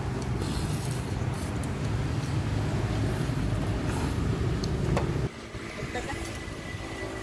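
Steady low rumble of a running engine that cuts off abruptly about five seconds in, leaving a quieter background.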